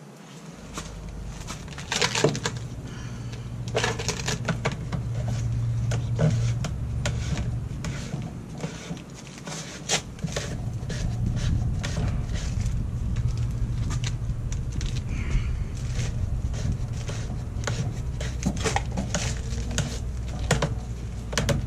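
Hands working a glued PVC pipe and fitting on a pool pump: scattered plastic clicks, knocks and rubbing, over a steady low rumble that comes in within the first second.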